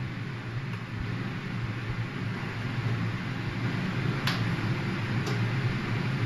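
Steady hum and hiss of a fan running, with two light clicks about four and five seconds in.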